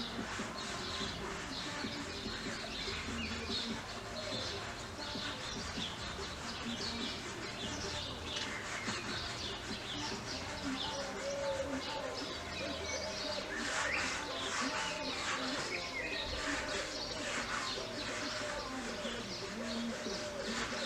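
Garden birds chirping and calling, many short calls overlapping throughout.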